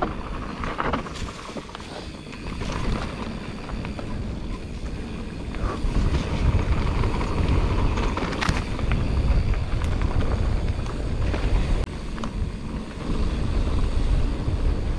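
Mountain bike riding down a rough trail: steady rumble of tyres and wind on a chest-mounted action camera's microphone, with scattered clicks and knocks from the bike over the ground.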